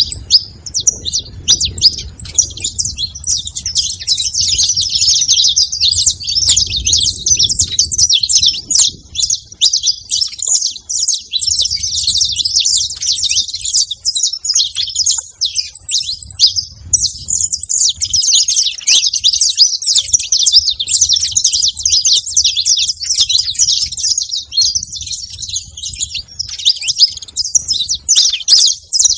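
A flock of saffron finches chirping all at once, many overlapping calls in a dense, unbroken chatter. A low rumble sits under the first several seconds.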